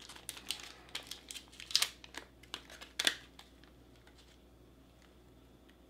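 Foil pouch of hot chocolate mix crinkling and crackling as it is opened by hand, with two sharper crackles about two and three seconds in.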